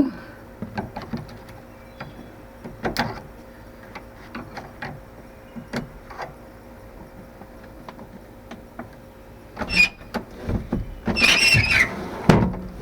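Scattered metal clicks and knocks of a pickup's door handle and latch linkage being worked by hand inside the door, then a louder burst of rattling and scraping near the end.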